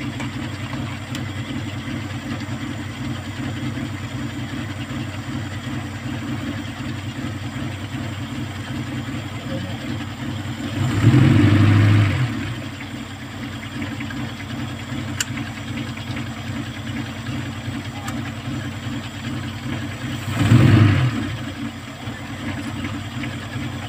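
Kia Pride's four-cylinder engine idling with a misfire, revved briefly twice, about eleven seconds in and again near the end. The misfire comes from cylinder 4, whose carbon-fouled spark plug is not firing and whose high-tension wire is leaking current.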